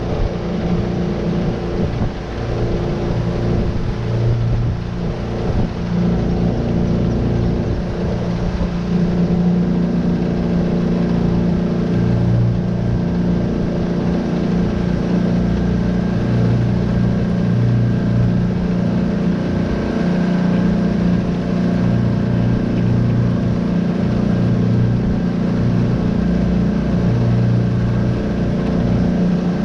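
Tohatsu 9.8 hp four-stroke outboard motor running under way at a steady pitch, a little uneven in the first few seconds and then holding steady.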